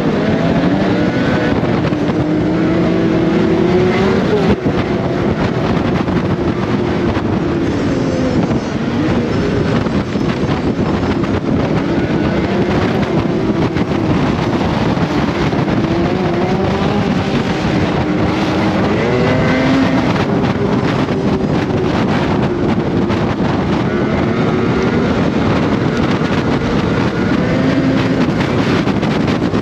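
Snowmobile engine running hard along a trail. Its pitch rises and falls again and again as the throttle opens and eases off.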